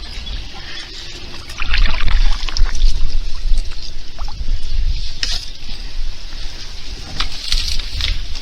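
Water splashing and dripping with scattered knocks as a fishing kayak is paddled, over a low rumble that starts about two seconds in.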